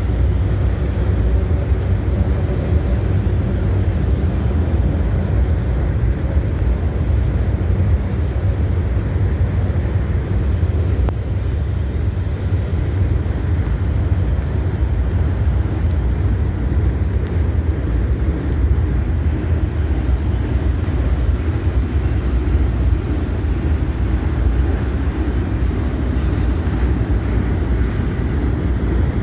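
Freight train cars rolling past at steady speed, a continuous low rumble with no breaks.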